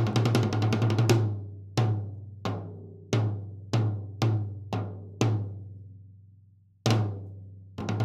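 A tom with a new Evans head struck with drumsticks: a quick roll, then single hits about every two-thirds of a second, each ringing on at the same low pitch. After a long ring-out comes one more hit and then another roll near the end. The drum sounds slightly too ringy, needing dampening.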